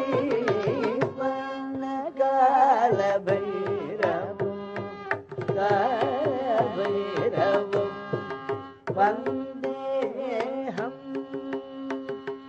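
Carnatic vocal music: a male voice singing a kriti in wavering melodic phrases over a steady tanpura drone, with quick mridangam drum strokes throughout.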